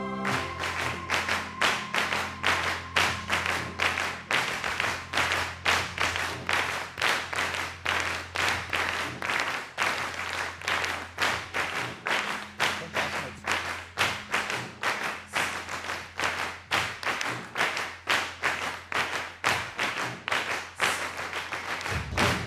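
Hands clapping in a steady beat, about two or three claps a second, over a held low bass note of drum and bass music. This is the clapping part of the piece.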